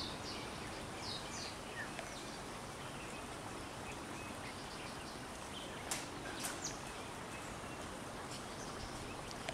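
Quiet forest ambience: a steady background hiss with scattered short, high bird chirps, mostly in the first two seconds, and a couple of faint sharp clicks about six seconds in.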